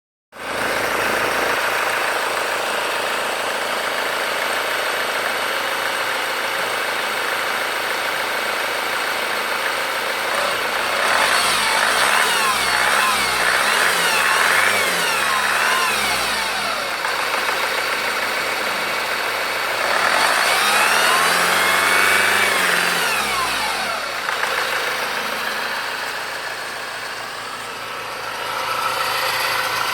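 Honda Accord 2.2 i-CTDi four-cylinder turbodiesel running, idling with a few quick revs and then one longer rev, with a whine that came on after its timing chains were changed.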